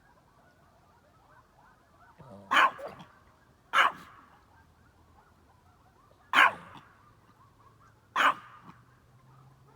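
Dog barking four times in loud, single barks spaced one to two and a half seconds apart, over faint wavering calls in the background.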